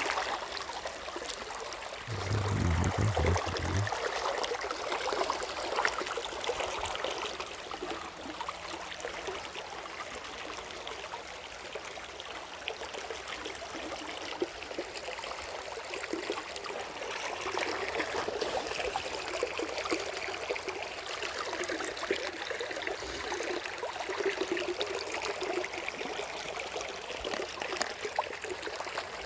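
Water of a waterfall stream running over rocks, a steady rushing and trickling, with a brief low rumble about two seconds in.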